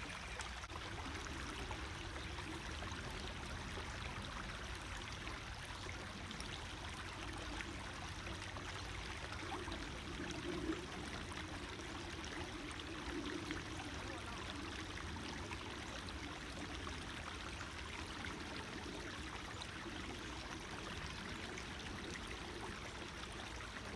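Small creek flowing over rocks, a steady trickling and babbling of water.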